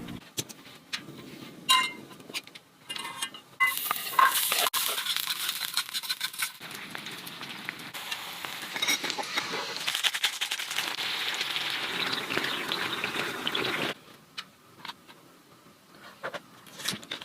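Food sizzling in a pan, a dense crackling hiss with light clicks and clinks that cuts off suddenly about three seconds before the end.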